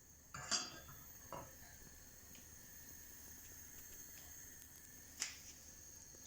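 A few light clicks and taps of kitchen utensils, about half a second in, again near a second and a half, and once more past five seconds, over a faint steady background.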